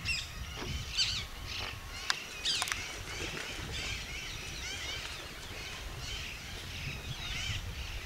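A chorus of wild birds calling at a wetland: many short chirps repeated throughout, with a few louder calls in the first three seconds. A sharp click sounds about two seconds in, over a steady low rumble.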